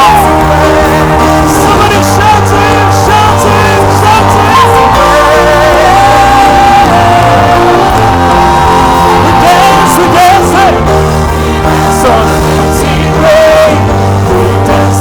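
Contemporary worship song played by a band over steady sustained chords, with a lead voice singing long held, wordless notes.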